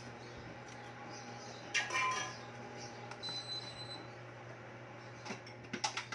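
Glass lid and stainless steel stockpot clinking as the soup simmers underneath: a few sharp clinks, the loudest about two seconds in with a short ringing tone, over a steady low hum.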